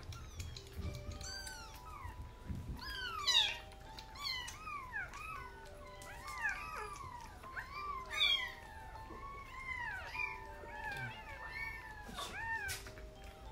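Young kittens mewing over and over: short, high cries that rise and fall in pitch and often overlap. Soft background music with held notes plays underneath.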